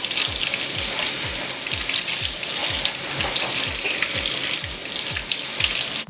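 Kitchen faucet running into a stainless steel sink as a makeup sponge is rinsed under the stream. The water sound cuts off suddenly at the very end.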